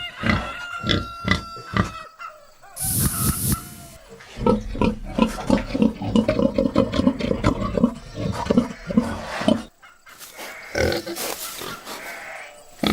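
Domestic pig grunting over and over, with a short harsh burst about three seconds in and a dense run of rapid grunts from about four to nearly ten seconds in.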